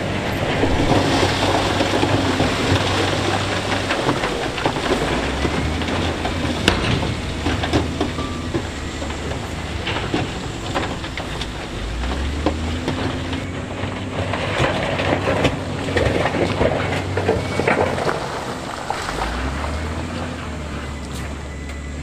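Diesel engine of a heavy earthmoving machine running under load, its low note shifting up and down a few times, with a dense clatter and crackle of stone and gravel being pushed and scraped.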